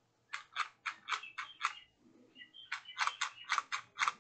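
The RC car's small electric steering motor and gears whirring in short bursts, about four a second, as the steering is flicked left and right from the phone app: two runs of about six whirs each, with a pause near the middle.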